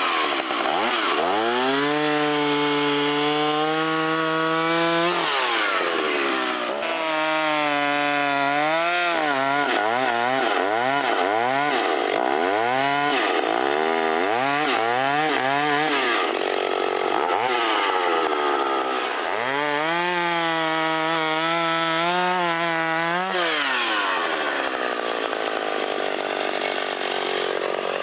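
Vintage Stihl 031 two-stroke chainsaw cutting through a large log. It runs at high revs, and its pitch sags and recovers as the chain loads up in the wood, with a run of quick rev changes in the middle. The pitch drops away near the end.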